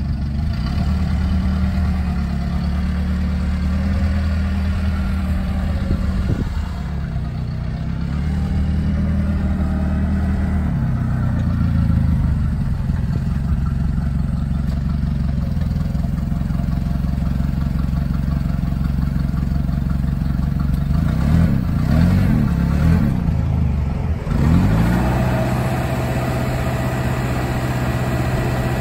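Engine of a propane-powered Cat C5000 forklift running as it drives, its speed rising and falling repeatedly. Near the end the engine holds a steadier, higher note while the mast is raised.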